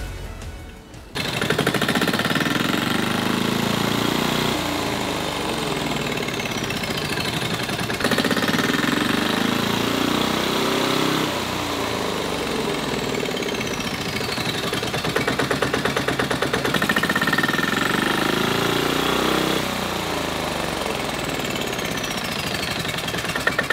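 Electronic background music with a fast, pulsing beat and whooshing sweeps that rise and fall every few seconds.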